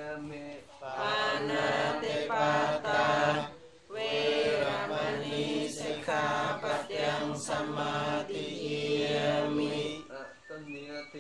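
Theravada Buddhist chanting in Pali: male-range voices recite on a steady held pitch in continuous phrases, with a short break for breath about four seconds in.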